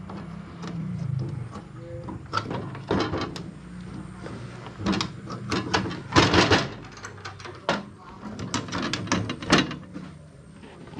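Metal-framed casement window being unlatched and pushed open by hand, its latch and stay giving a string of sharp clicks, knocks and rattles in several clusters.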